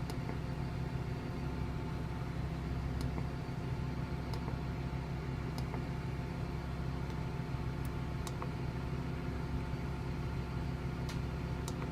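2020 Blue Bird Vision school bus's gasoline engine idling steadily, heard from the driver's seat, with a few faint clicks.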